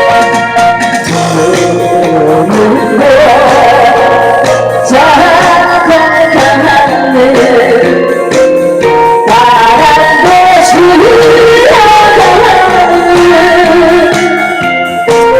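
A woman singing a song over loud instrumental backing music; her voice comes in about a second in and stops shortly before the end.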